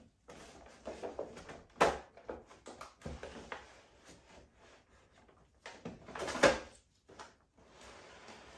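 Cardboard box and clear plastic tray of an action figure being handled and pulled apart: irregular rustling and scraping, with two sharper knocks, about two seconds in and about six and a half seconds in.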